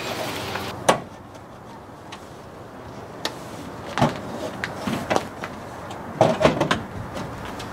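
Hand work on a Chevrolet K5 Blazer's tailgate while fitting its aluminium trim panel: scattered sharp clicks and metal knocks, the loudest about a second in and a quick cluster near the end, over a low steady hum.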